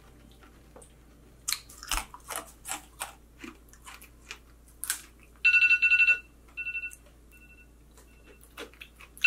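Crunchy biting and chewing of homemade honeycomb toffee, then an electronic alarm starts beeping about five seconds in: a loud rapid burst followed by shorter repeated bursts of beeps.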